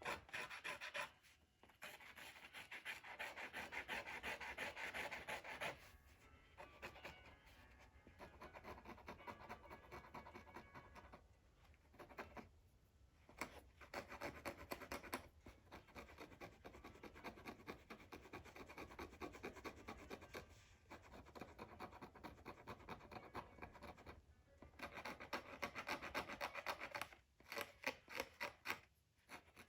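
Faint scratching and rubbing on the Torah scroll's parchment during a tab repair, in bouts of several seconds broken by brief pauses.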